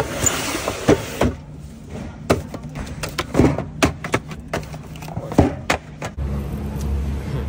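Knocks and thumps of cardboard 12-can soda cases being set down and pushed along a checkout conveyor belt, a dozen or so sharp hits spread over several seconds. A low steady hum starts about six seconds in.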